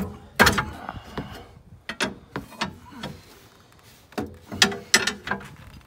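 Pry bar levering against a car's suspension, clanking and scraping on the metal parts in a series of sharp knocks, the loudest about half a second in.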